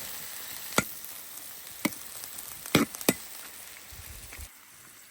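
Cured pork and cabbage sizzling in a wok while being stir-fried, with four sharp clinks of the spatula against the wok. The sizzle drops away near the end.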